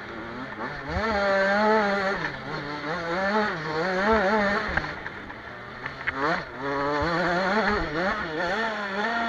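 Motocross bike engine, heard close up from the rider's helmet camera while riding. Its pitch rises and falls again and again as the throttle opens and closes over the track.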